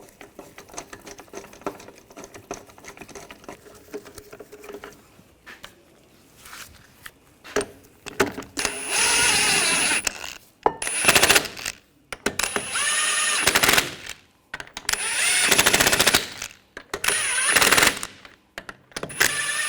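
Impact wrench running lug nuts onto the wheel studs in about six short bursts of a second or so each, its motor whine rising and falling with each burst. Before that come a few seconds of faint clicking as the nuts are threaded on by hand.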